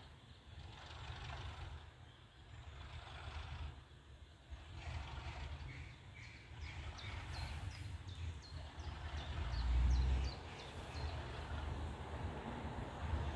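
Small birds chirping in quick repeated calls, over wind rumbling on the microphone, with a strong gust about ten seconds in.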